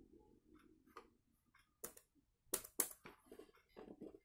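Sharp plastic clicks and taps from handling a laptop just after it is switched off: a few light ticks, then three louder clicks about two to three seconds in and more small ones near the end, with a faint low hum dying away in the first second.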